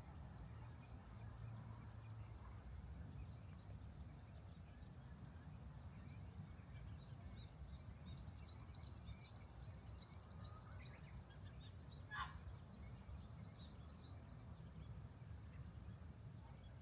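Small birds chirping faintly in a quick run of short high notes, with one louder call a little past the middle, over a faint low rumble.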